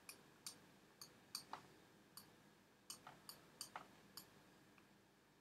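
Computer mouse clicking about ten times at uneven intervals, faint against quiet room tone.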